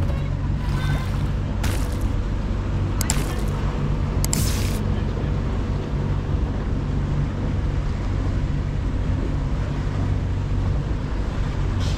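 Motorboat engine running steadily under way, a low drone with water and wind noise, and a few short hissing bursts in the first five seconds.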